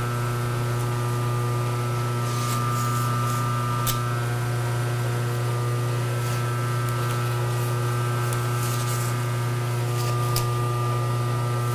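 Machine-shop lathe running steadily with a low hum and a set of steady tones above it, with a few light clicks and rustles of handling, one sharper about four seconds in.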